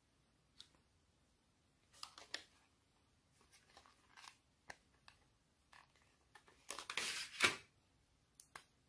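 Small plastic clicks and crinkles as a clear plastic blister tray of pineapple-shaped clay containers is handled. A longer, louder crinkle comes about seven seconds in as a container is pulled from the tray.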